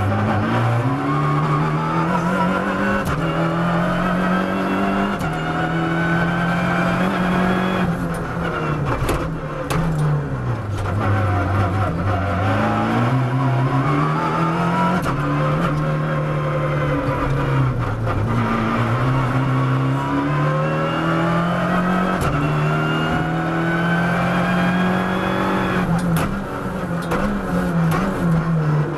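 Abarth 500 R3T rally car's turbocharged four-cylinder engine heard from inside the cockpit, driven hard: the revs climb again and again through the gears, then drop away under braking into the bends. There are a few sharp knocks around the slowdowns.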